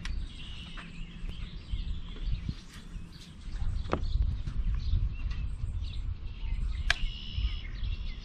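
Wind rumbling on the microphone with birds chirping, and two short sharp clicks, one about four seconds in and one near the end.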